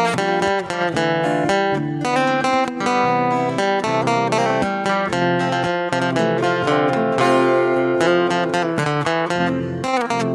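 Background music: acoustic guitar playing a busy plucked and strummed pattern.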